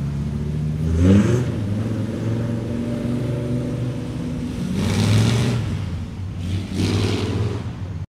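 Car engines running as cars pull out. One engine revs up about a second in, and two louder throttle bursts follow around five and seven seconds in.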